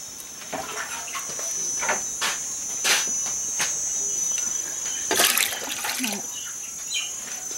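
Steady high-pitched insect chirring throughout, with scattered knocks. About five seconds in, a ladle stirs chicken pieces in water in a metal pot, with a short burst of clatter and sloshing.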